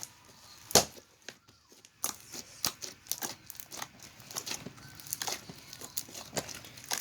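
Hands squishing and stretching slime, making irregular sticky crackles and pops. There is a sharp pop just under a second in and a short lull before the crackling picks up again.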